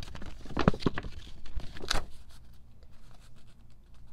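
Paper rustling and crackling as a folded album poster is handled and opened out, with several sharp crackles in the first two seconds, then softer rustling.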